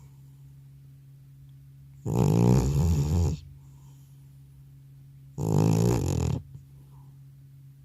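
An old cat snoring loudly in deep sleep: two snores, each about a second long and some three seconds apart.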